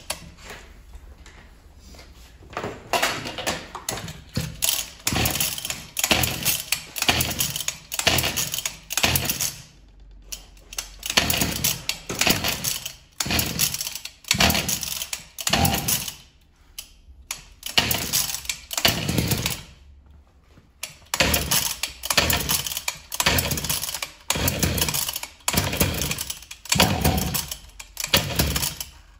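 Recoil starter of a 1999 Husqvarna 252RX two-stroke brush cutter pulled over and over, about twenty pulls in quick succession with a few short pauses, the engine turning over without starting. The engine has just had its piston refitted, and the owner blames the piston for it not running.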